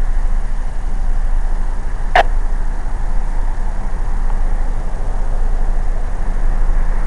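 Steady rushing noise inside a car during a pause on the two-way radio, with a single sharp click about two seconds in.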